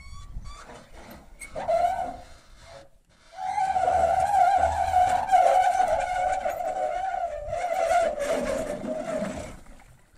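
Aluminium boat hull sliding off its trailer into the water, the hull rubbing on the trailer in a long squeal that lasts about six seconds, after a short squeal about two seconds in.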